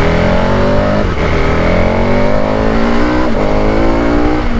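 2021 KTM 1290 Super Adventure's V-twin engine under hard acceleration. The revs climb in first gear, then it shifts up to second about a second in and to third a little after three seconds in. Each shift is a brief dip in pitch before the revs climb again.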